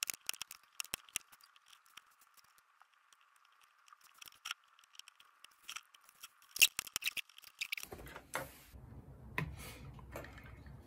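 Small sharp clicks and scrapes of a soldering iron and a metal hand tool working on a battery's circuit board while it is being desoldered, with one louder sharp click about two-thirds of the way through. Near the end the board and plastic housing are lifted and handled.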